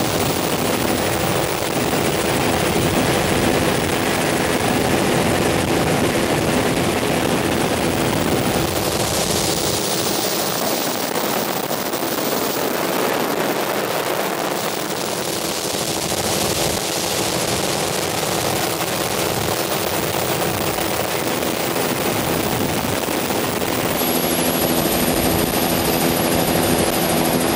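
Helicopter engine and rotor noise heard from aboard the helicopter: a loud, steady wash of noise with a few steady tones running under it, the tone shifting slightly near the end.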